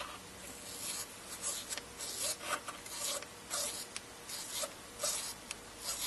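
Dirty volume control potentiometer of a NuTone IS305 intercom speaker being turned back and forth by hand: its wiper scrapes across the dirty wire-wound ring in short scratchy strokes, about two a second, sounding somewhat like a zipper moving back and forth. The scratching is the sign of dirt on the ring, which makes the control lose its connection.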